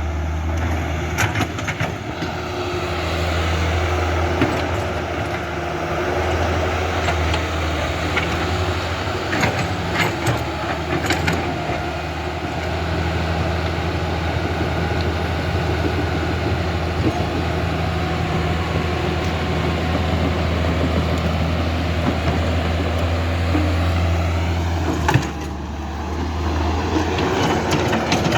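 Huina 1550 remote-control excavator's electric motors and gearboxes running steadily as the machine works its grab, with a few sharp clicks along the way. The drone drops briefly about three quarters of the way through.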